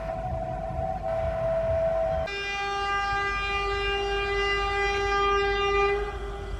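Horn of a WAP-7 electric locomotive sounding over the low rumble of the train. A higher note held from the start changes about two seconds in to a lower, richer note, which is held for about four seconds and then stops.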